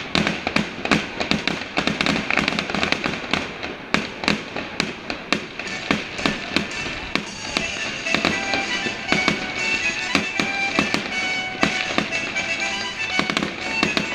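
Fireworks exploding in rapid, overlapping bangs and crackles, with music playing underneath that comes through more clearly in the second half.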